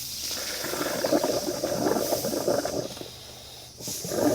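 Coolant bubbling and gurgling in a hose, with air hissing, as the BMW cooling line is purged by blowing air through it. It comes in two spells, with a short lull about three seconds in.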